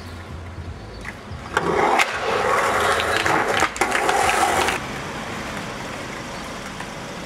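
Skateboard landing with a sharp smack about a second and a half in, then its wheels rolling loudly over pavement for about three seconds, with one more knock partway through. Softer, steady wheel noise follows.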